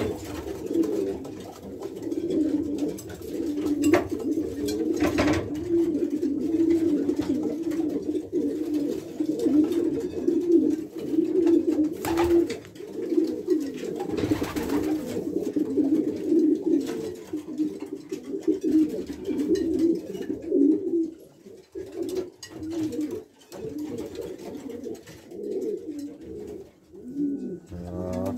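Newly paired racing pigeons cooing almost without a break, the cooing falling into shorter bouts with gaps in the last several seconds.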